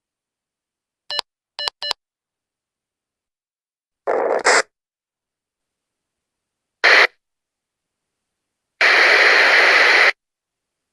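Walkie-talkie sounds: three quick beeps about a second in, then bursts of radio static. There is a half-second hiss around four seconds in, a short burst near seven seconds, and a longer hiss of about a second and a half near the end.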